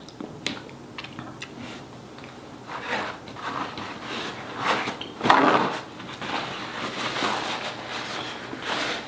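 Close-miked eating sounds: chewing and biting, with scattered clicks and crackles from handling the food, and a louder crunching or rustling burst a little after the middle.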